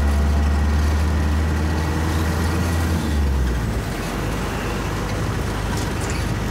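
Engine and road noise of a moving vehicle heard from inside the cab, a steady low engine drone under tyre noise. A little past halfway the low drone drops away, as if the engine eases off.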